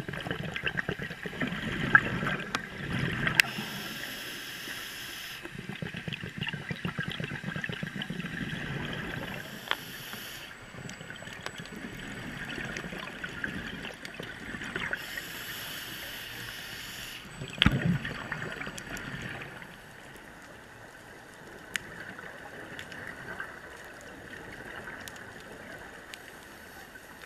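Scuba regulator exhaust bubbles gurgling and crackling in bursts of a few seconds, heard underwater through the camera's housing, with a sharp knock about two-thirds of the way through. The bubbling dies down in the last several seconds, leaving a faint hiss.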